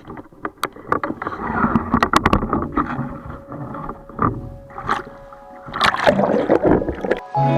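Sea water splashing and sloshing, with scattered sharp knocks and clicks. Music comes in just before the end.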